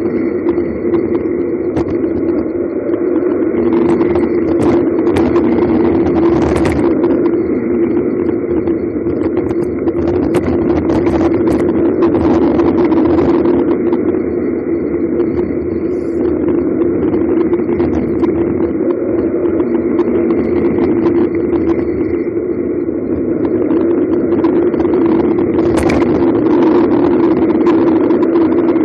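Bicycle coasting fast down a paved mountain road: a steady buzzing hum, with bursts of rattle and clatter as it runs over rough patches.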